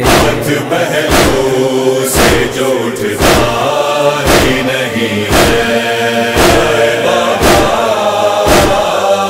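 A chorus of men's voices chanting a nauha lament, kept in time by a heavy matam beat, chest-beating strokes about once a second.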